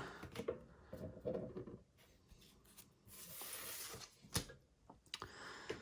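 Trading cards being handled and slid across one another, with a brief sliding rub a few seconds in, a sharp click, then a few small clicks near the end.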